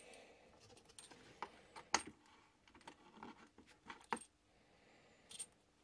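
Light metallic clicks and clinks of a multi-pin cable plug being lined up and pushed into the front socket of a desoldering station, with sharper clicks about two and four seconds in and a brief scratchy sound near the end.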